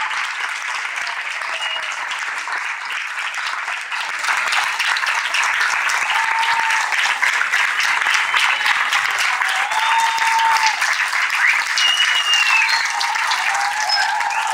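An audience in a large hall applauding steadily. The clapping grows louder about four seconds in.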